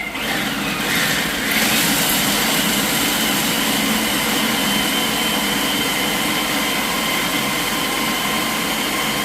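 Blender running at high speed, grinding a dry mix of nuts, coconut and cacao powder into a coarse crumb. Its whine steps up in pitch about a second and a half in, then holds steady.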